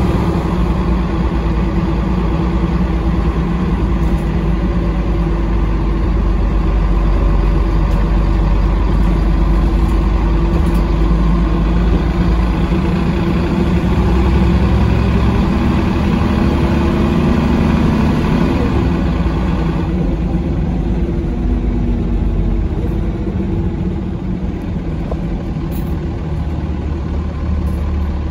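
Mercedes-Benz O405 city bus on the move, heard from inside: a steady engine drone with road noise. The engine note rises and falls between about 16 and 20 seconds in, and the higher hiss drops away at about 20 seconds.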